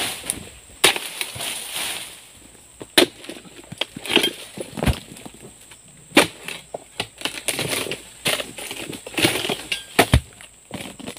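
Irregular sharp chopping strikes of a pole-mounted harvesting blade cutting into a young oil palm's frond bases and fruit bunch, the loudest about six and ten seconds in, with rustling of the fronds between strikes.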